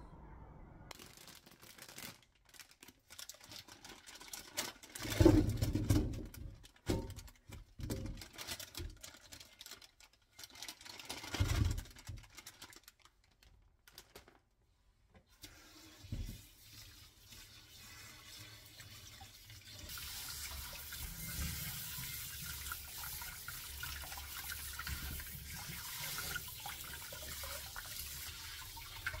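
Scattered knocks and clatter with two louder thumps. Then, from about twenty seconds in, a tap runs steadily into a stainless steel sink while sweet potatoes are rubbed clean by hand in a colander.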